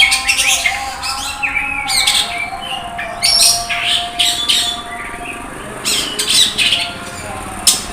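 Oriental magpie-robin (kacer) singing hard, loud phrases of sharp, scratchy high notes and quick chirps, coming in several bursts with short pauses between them.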